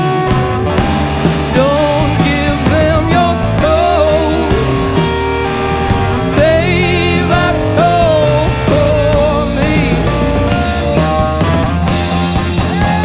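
Rock band playing live: drums, bass and guitar, with a wavering lead line above them, in a break between sung lines of the song.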